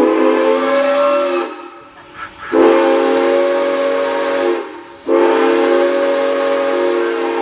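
Southern Pacific six-chime steam whistle on steam locomotive #475 blowing three long blasts, each a steady chord of several tones, with short gaps between them.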